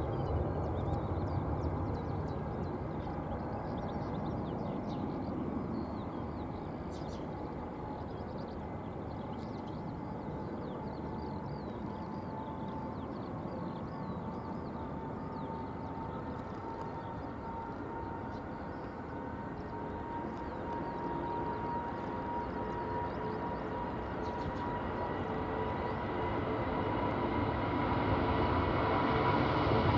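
Jet airliner's turbofan engines running, a steady rushing noise with a thin whine that rises slowly in pitch and grows louder near the end.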